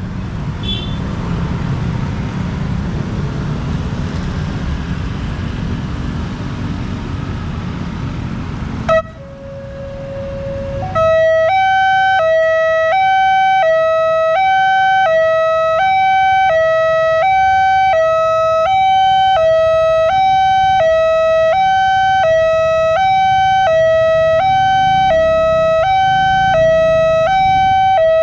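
Road traffic noise, then a click about nine seconds in and a short steady tone. From about eleven seconds in, a railway level-crossing's electronic warning alarm sounds loudly and steadily, alternating between two pitches a little over half a second each, the signal that a train is approaching.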